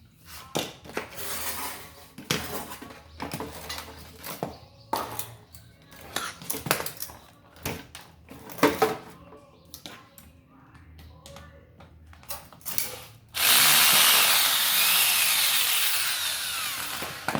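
Irregular clicks, knocks and scraping from electric fan parts being handled during a seized-shaft repair. About 13 seconds in, a loud steady hiss starts suddenly and runs for about four seconds, slowly fading.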